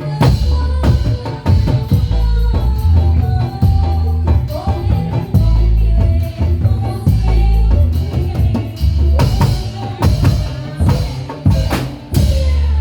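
Patrolan (Javanese patrol music) played live: a percussion ensemble with a heavy bass drum and frequent sharp drum strikes under a gliding melody line.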